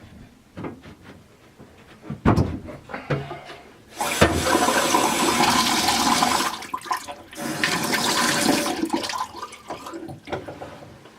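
A few knocks and clicks of handling, then about four seconds in water rushes out of a freshly repaired two-handled faucet into the sink, running strongly for about five seconds before easing off.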